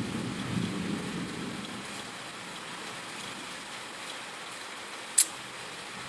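Steady rain falling, with a low rumble of thunder fading over the first two seconds and a single sharp click about five seconds in.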